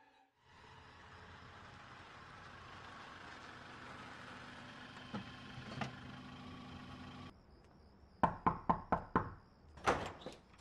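A car's engine running steadily, cutting off abruptly about seven seconds in. It is followed by knocking on a panelled wooden front door: five quick, evenly spaced raps and then a few more.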